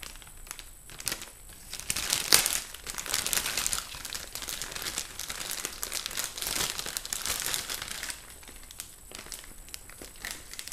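Plastic packaging bag crinkling and rustling as it is opened and its contents pulled out, with many small crackles; the handling goes quieter for the last couple of seconds.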